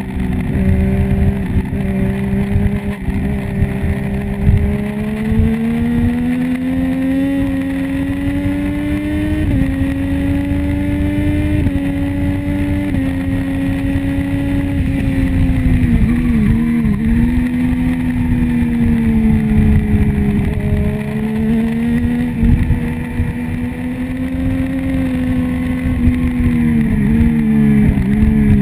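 Triumph Street Triple's three-cylinder engine running hard under race load. Its pitch climbs and falls with the throttle, with small jumps and a couple of quick dips as gears change about halfway through and again near the end.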